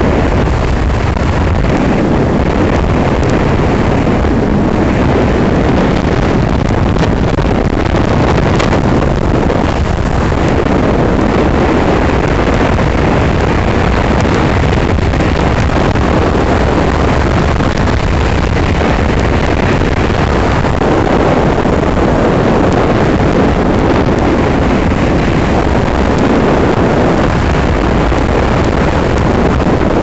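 Heavy wind buffeting the microphone over the steady drone of a Ford F-450's 7.3-litre Power Stroke V8 turbo-diesel running flat out near its 3,300 rpm maximum in fifth gear.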